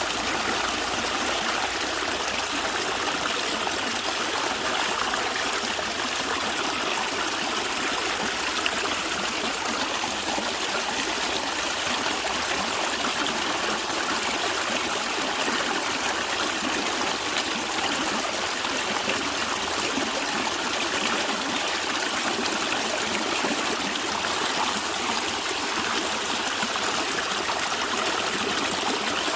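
Natural stream of water running and gurgling steadily over stones, an unbroken even rush with trickling.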